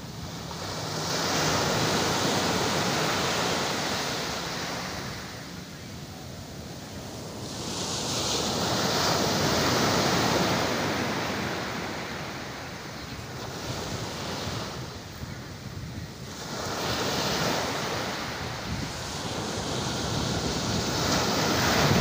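Small sea waves breaking and washing up a sandy beach, the surf swelling and fading every few seconds, with wind rumbling on the microphone.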